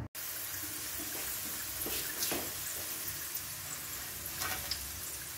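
Potato fries sizzling as they deep-fry in hot oil in a wok, a steady hiss with a couple of sharper crackles about two seconds in.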